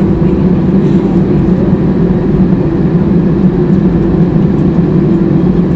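Steady cabin noise of an Airbus A320 taxiing after landing: a constant low hum over a deep rumble.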